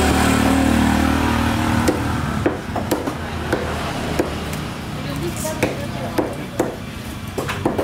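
Large knife chopping a trevally into pieces on a round wooden chopping block: a series of sharp knocks, about two a second, starting about two seconds in. A steady low hum fades out about two and a half seconds in.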